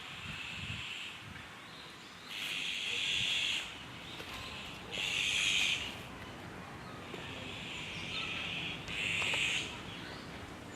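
Bird calls in the woodland: five rasping, high bursts, each about a second long, the loudest about halfway and near the end.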